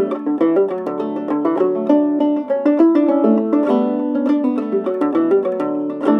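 Old-time clawhammer banjo tune, a steady run of plucked notes.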